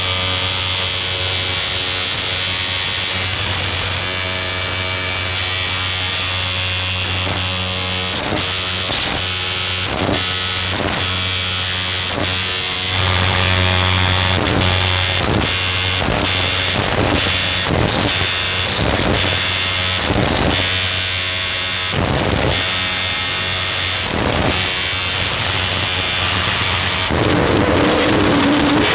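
Harsh noise music: a loud, dense electronic drone with a steady low hum and buzzing overtones. About eight seconds in, irregular crackling bursts break through it and come faster in the middle. Near the end a new wavering mid-pitched tone enters.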